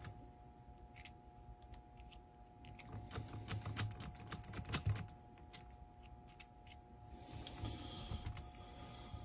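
Small, irregular clicks and taps of hand work on a cassette deck's tape transport mechanism, in a flurry near the middle and a few more near the end.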